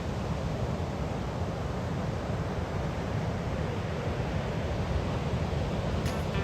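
Surf breaking on the beach, a steady rushing noise, with wind buffeting the microphone.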